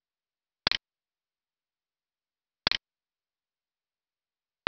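Computer mouse clicks: two crisp clicks about two seconds apart and a third right at the end. Each is a quick double tick of press and release, with dead silence between.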